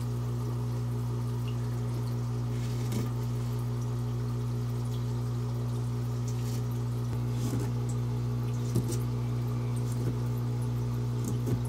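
A steady low hum runs throughout. Over it come a few soft water splashes and small gravel clicks as a hand pushes plant stems into aquarium gravel under water, the loudest a little under halfway through.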